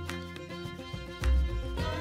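Instrumental background music with a steady deep bass beat, one heavy bass hit about a second in.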